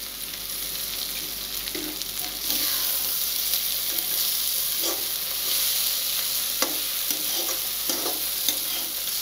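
Eggs and chopped vegetables sizzling in hot oil in a kadai while a metal spatula stirs and scrapes them, with a few short clinks of the spatula against the pan. The sizzle grows louder about two and a half seconds in.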